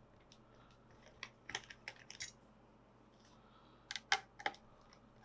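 Small, sharp clicks and taps of hand-work inside an open laptop, made while the old hard drive is taken out. The clicks come in two quick clusters, one about a second in and one about four seconds in.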